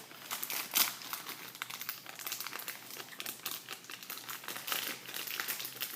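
Plastic bag crinkling and crackling in irregular bursts as slime is worked out of it by hand.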